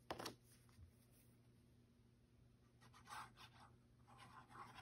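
Faint rustling and scraping of cardstock and foil paper being handled, with a short click right at the start and a few soft rustles later on, over a low steady hum; otherwise near silence.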